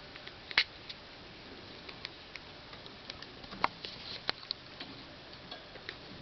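Sick pet rats sneezing: short sharp clicks, the loudest about half a second in and two more around the middle, among scattered fainter ticks.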